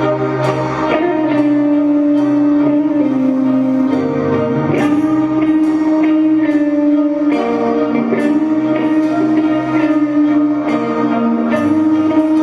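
Heavy metal band playing live through a PA: a sustained melodic lead, held notes changing every second or two, over regular drum hits, with no vocals.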